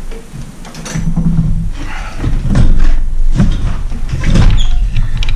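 Tools clattering and knocking as a screwdriver is rummaged for and picked up off a workbench, a few irregular thuds over a steady low hum.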